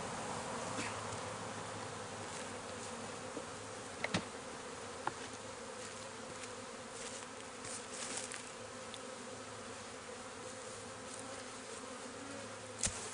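Honey bees buzzing in a steady drone around an opened hive. A few sharp knocks stand out, the loudest about four seconds in and near the end.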